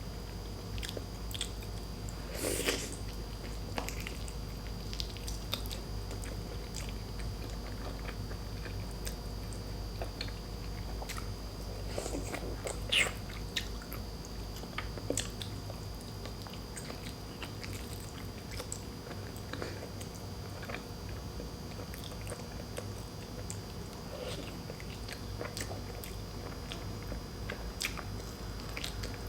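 Close-miked chewing and biting of boiled pork leg and rice: scattered wet mouth clicks and smacks, with a couple of louder bites about two and a half and thirteen seconds in.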